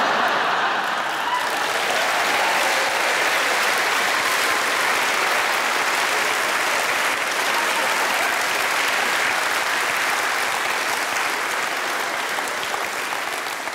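Studio audience applauding, a dense steady clapping that dies away near the end.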